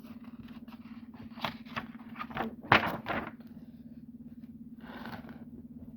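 Paper rustling and clicking, as of a book page being handled and turned, in a cluster about one and a half to three seconds in, over a steady low hum. A short hiss comes near the end.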